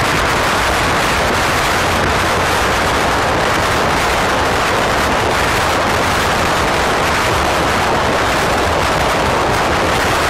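Steady, loud rush of road and wind noise from a car moving through a road tunnel, unbroken throughout.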